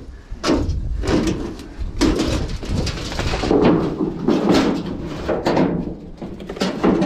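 Irregular knocks, scrapes and rustles, as of cover boards and debris being lifted and shifted by hand while searching for snakes.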